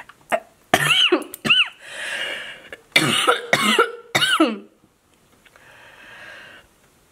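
A woman's coughing fit: two clusters of short, loud coughs, with a breath drawn in between them and a quieter breath near the end.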